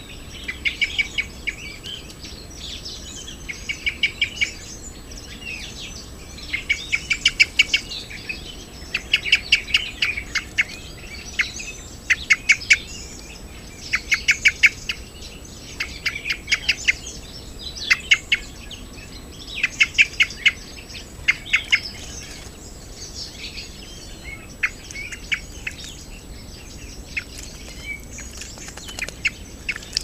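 A songbird singing short phrases of rapid repeated notes, one phrase every second or two, with the phrases thinning out near the end.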